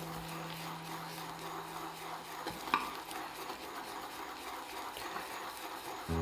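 Pony-knot shaving brush swirling soap lather in a lathering bowl: a steady wet, crackly stirring, with one sharp knock a little under three seconds in.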